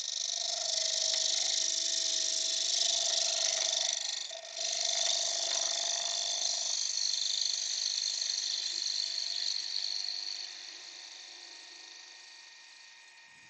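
Wood lathe running while a hand-held turning tool cuts the face of the spinning workpiece, a steady hissing cut over a running tone. The cut breaks off briefly about four and a half seconds in, then fades away over the last few seconds.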